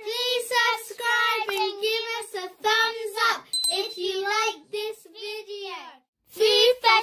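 A high-pitched, child-like voice singing a short outro jingle in phrases, with a brief high beep about three and a half seconds in.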